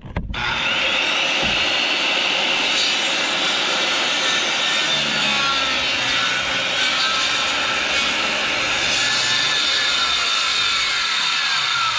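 A power saw starts and cuts steadily through a board for the whole stretch, a loud, even, hissing whine with no pauses.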